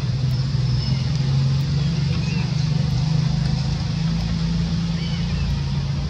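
A steady low engine drone that drifts slightly in pitch, with a few faint high chirps over it.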